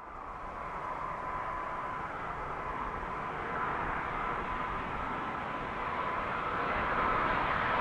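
Wide-body jet airliner on approach: its turbofan engines make a steady rushing noise with a thin high whine, slowly growing louder.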